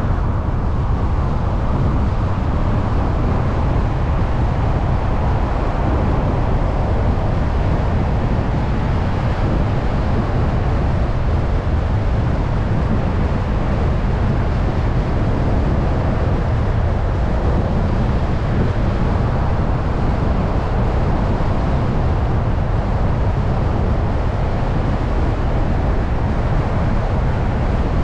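Steady road noise of a moving car: an even, low rumble of tyres on asphalt and passing air, with no engine revving or other distinct events.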